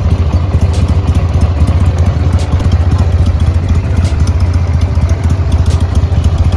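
Motorcycle engine running steadily at a constant speed, a loud low rapid pulsing with no revving.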